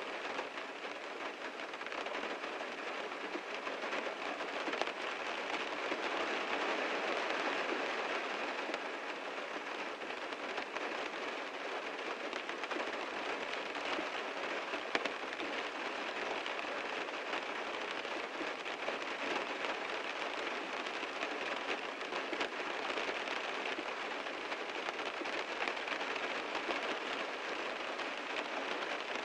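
Heavy rain drumming steadily on a car's body and glass, a dense patter of countless drops with a few sharper drop hits standing out.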